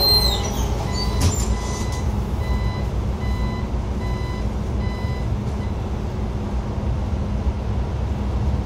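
Xiamen King Long XML6125 hybrid city bus: a steady low rumble, with a string of short electronic warning beeps, about two a second, that stop about five seconds in.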